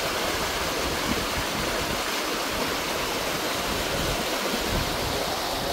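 Steady rush of flowing water in a rocky hill stream.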